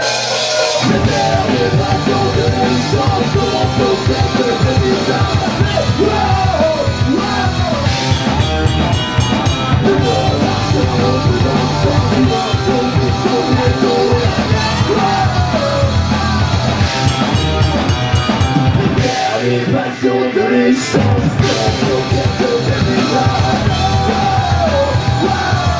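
Live punk rock band playing: distorted electric guitars, bass guitar and a drum kit, with shouted vocals. The bass and drums drop out briefly about twenty seconds in, then come back.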